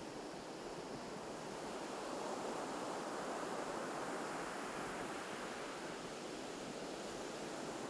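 Ocean surf washing onto a beach: a steady wash of breaking waves that swells gently about two seconds in and eases again, with some wind on the microphone.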